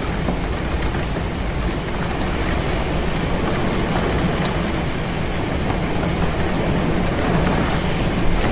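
Heavy rain with wind against a window: a steady rush of noise with a deep rumble underneath and a few faint ticks of drops.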